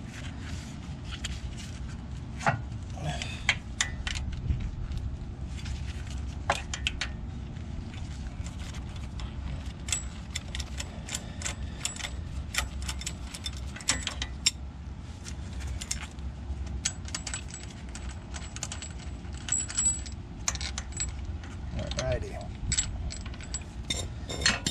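Irregular metallic clicks and clinks of hand tools on the crank pulley bolt of a Toyota 4E-FTE engine as the bolt is worked loose and backed out, coming thicker in the second half.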